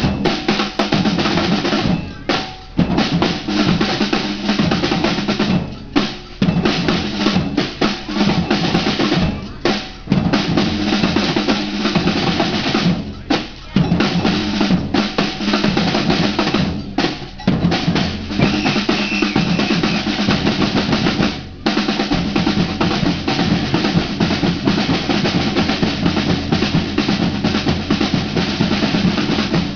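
A samba percussion band playing live: large surdo bass drums and snare drums beating a fast, dense rhythm. The band stops for a moment every three to four seconds for the first twenty seconds or so, then plays straight through.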